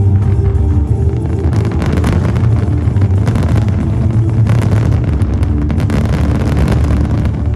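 Fireworks display going off: a heavy low rumble of bursts, with dense sharp crackling from about a second and a half in, over festival music.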